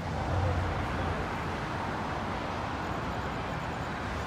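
Steady outdoor city noise, a roar of traffic and surroundings with no clear single event.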